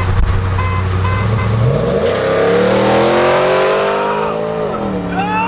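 Pickup truck V8 engine going to full throttle in a roll race. The engine note rises from about two seconds in and holds high, then drops sharply near the end as the transmission upshifts.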